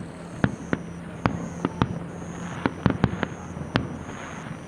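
Fireworks display: aerial shells bursting in a rapid, irregular series of about a dozen sharp bangs, with crackling between them.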